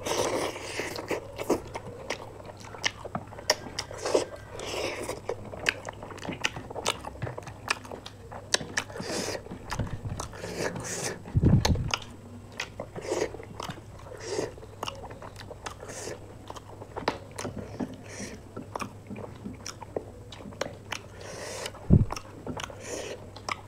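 Close-miked eating: crunchy bites into fried chicken pakoda and chewing, with many small wet mouth clicks and smacks. Two louder low thumps, about halfway through and near the end.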